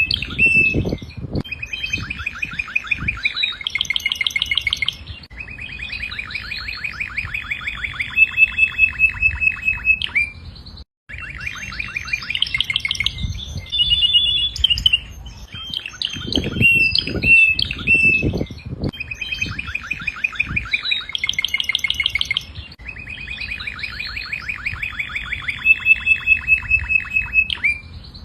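Domestic canary singing: long phrases of rapid trills and rolls, broken by a brief gap about eleven seconds in.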